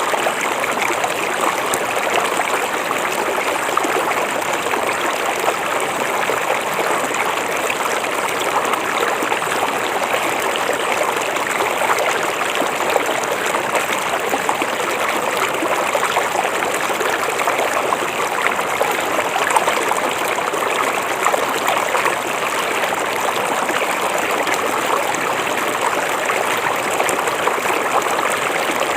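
River water flowing steadily: a continuous rushing of water with fine splashing trickles, unchanging throughout.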